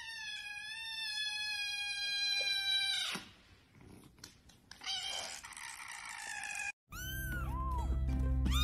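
A kitten meowing: one long, high meow of about three seconds that sinks slightly in pitch and drops off at the end, then a second, rougher meow a couple of seconds later. Background music comes in near the end.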